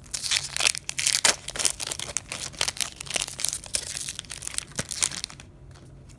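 Foil trading-card booster pack crinkling and tearing as it is opened and the cards are slid out, a dense run of crackles that dies down about five seconds in.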